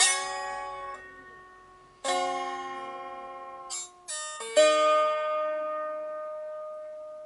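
A two-string tin-can canjo being plucked: notes struck together at the start and again about two seconds in, a few quick plucks around four seconds, and the last notes left to ring and fade slowly.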